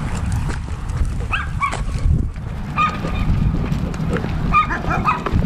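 Birds giving short honking calls, several times in little clusters, over a steady low rumble of wind and movement noise on a dog-mounted camera.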